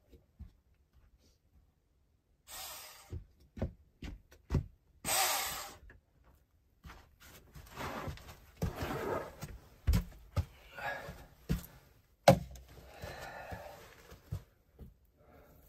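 Irregular knocks and short bursts of scraping or rustling, with a sharp knock a little after twelve seconds.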